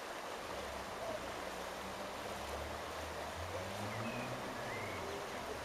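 River water running over shallow rapids, a steady rush. A faint low hum rises and falls through the middle.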